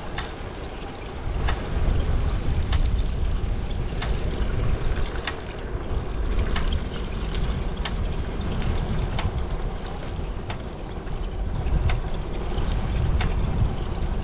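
Steady low rumble of wind and road noise from a moving ride, with a sharp tick repeating about every 1.3 seconds.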